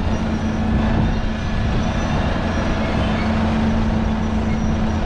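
A vehicle engine running steadily: a low rumble with a constant hum over it.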